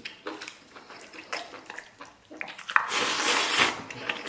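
Someone eating noisily from a bowl: small wet chewing clicks, then, about three seconds in, a loud slurp lasting nearly a second as saucy food is sucked in.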